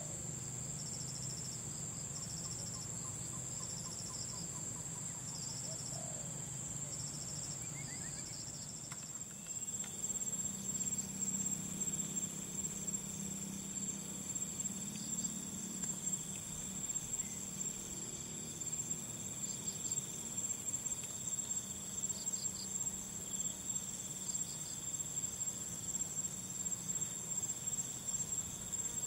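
Insects trilling continuously in a high, steady tone. A second insect chirps in short, regular pulses, about once a second, for the first few seconds. The sound grows a little louder about ten seconds in, with a faint low rumble underneath.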